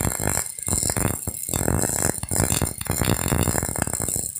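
MIG welding arc crackling steadily as the wire feeds into the weld, with a few brief breaks where the arc stops and restarts.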